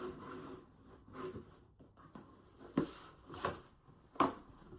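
Cardboard packaging being handled: a few short light taps and rustles, about four spread over the few seconds, as a small product is taken out of an advent calendar compartment.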